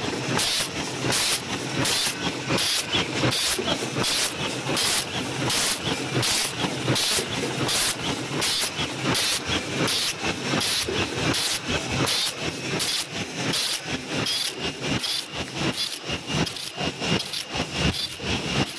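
OCM12 paper cup making machine with ultrasonic heater running at production speed on 12 oz cups: a steady mechanical clatter with sharp high-pitched pulses repeating evenly, about two to three a second, one cycle per cup.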